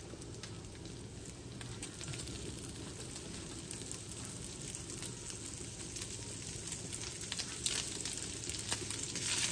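Bacon frying in a skillet: a steady sizzle with scattered crackling pops, a little louder toward the end.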